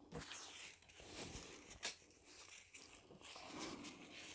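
Near silence, with faint rustling and a single light click about two seconds in.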